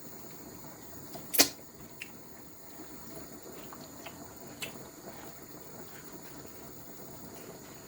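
A sharp kitchen knock about a second and a half in, then a couple of lighter clicks, over a faint steady background hiss.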